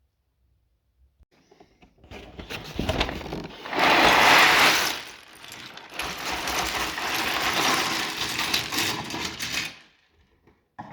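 Loose LEGO plastic pieces rattling and clattering in a box, a dense jumble starting about two seconds in, loudest around four seconds in, and stopping shortly before the end.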